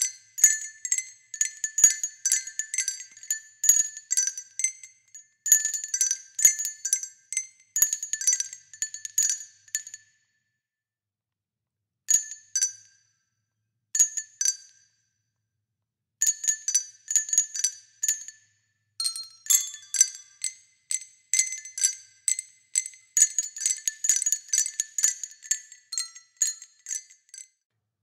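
High, tinkling, chime-like music: quick runs of struck, glassy notes, several a second, with no low notes. The runs break off briefly a few times around the middle and then go on.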